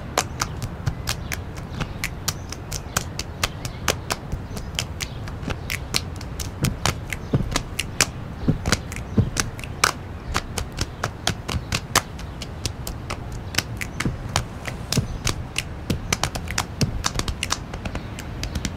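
Finger snaps and hand claps keeping a quick rhythm in a break of an a cappella song, with no singing over them.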